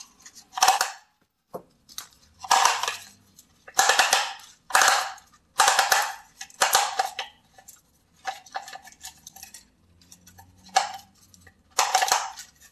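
Nylon trimmer line being hand-wound into an Echo Speed Feed plastic trimmer head. The head is twisted in short strokes about once a second, each stroke giving a brief burst of plastic clicking and line rasping.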